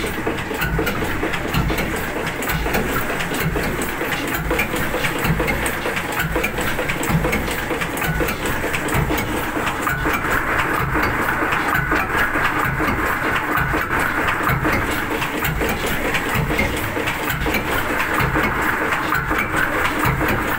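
Old 60-horsepower slow-running tugboat diesel engine running with a steady, even beat, its open valve gear clicking in time.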